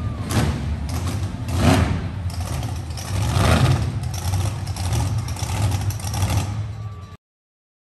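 Monster truck engine running and revving in several swells, until the sound cuts off abruptly about seven seconds in.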